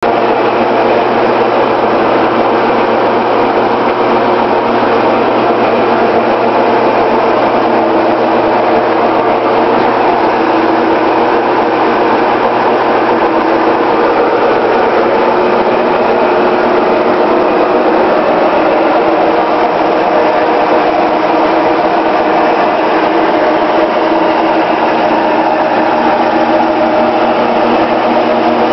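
LeBlond Regal metal lathe running steadily, a constant motor hum with a steady whine from the drive. The camera microphone makes it sound louder than it really is.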